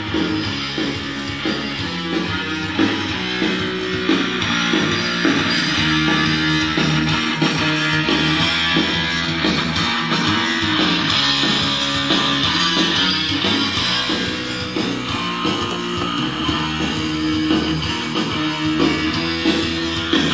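Guitar music playing back from a cassette on a Teac A-170 stereo cassette deck.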